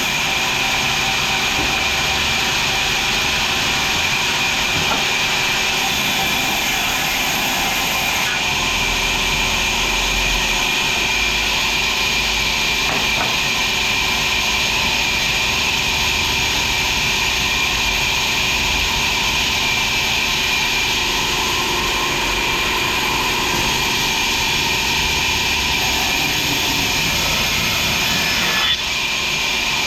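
Sawmill machinery running steadily, with a constant high whine over a continuous din.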